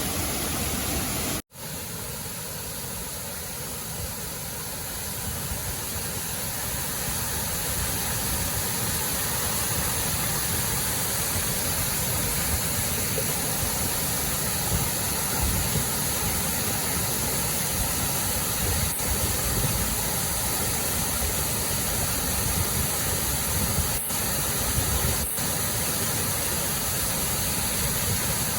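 Waterfall rushing: a steady, even roar of falling water, with a brief dropout about a second and a half in.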